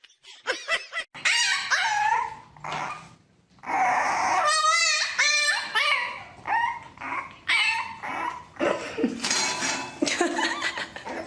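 A pet animal's repeated short, high-pitched yips and whines, some with a wavering pitch.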